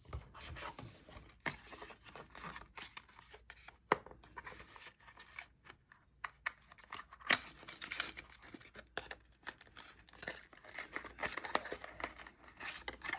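Packaging and small accessories being handled and unwrapped by hand during an unboxing: irregular rustling and scraping with many small clicks, the sharpest one about seven seconds in.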